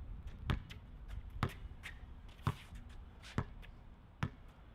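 A basketball being dribbled on an outdoor court, five bounces at a steady pace of about one a second.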